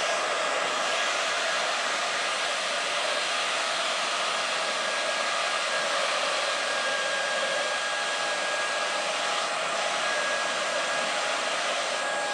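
Workman WindCore 15V cooling fans on a fan-cooled work vest running at their strongest setting: a steady whir of rushing air with a faint steady tone in it.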